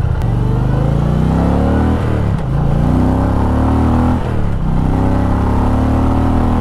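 Indian Pursuit's 1769cc liquid-cooled Power Plus V-twin accelerating hard in regular ride mode. Its pitch climbs and drops back twice, about two and four seconds in, as it shifts up through the gears.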